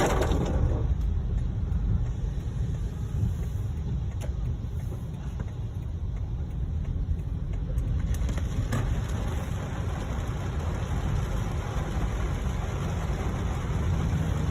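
Car driving on a wet road, heard from inside the cabin: a steady low rumble of engine and tyres, with a hiss that grows louder in the second half.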